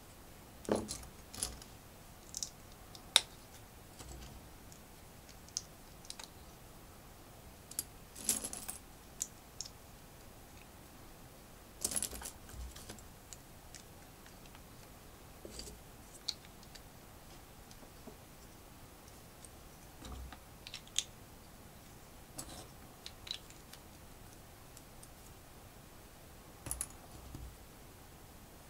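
Plastic LEGO pieces handled and snapped together: scattered sharp clicks with a few short rattling clatters, at irregular intervals.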